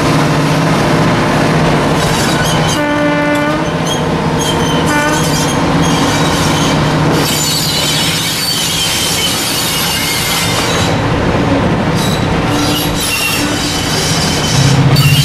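Class 55 Deltic diesel locomotive with its twin Napier Deltic two-stroke engines running under load. Its horn sounds about three seconds in and briefly again two seconds later. High squeals from the wheels follow through the second half, and the engine grows louder near the end.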